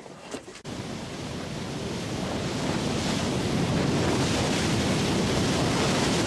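Wind blowing on the microphone over the rush of the sea, a steady noise that cuts in a little under a second in and swells over the next couple of seconds.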